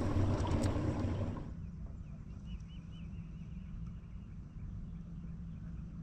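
Wind rumbling on the microphone, cutting off suddenly about a second and a half in. Then a quieter steady low hum, with a bird trilling briefly.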